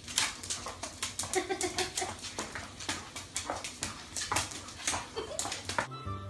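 A dog whimpering, with many sharp clicks and taps.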